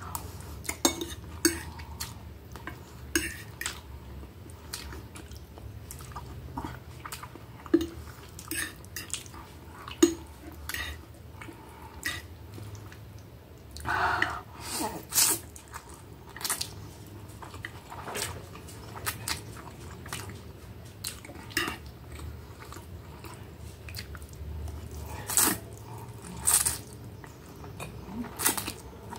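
Fork and knife clicking and scraping on a plate while spaghetti is chewed and slurped, with a longer slurp about halfway through.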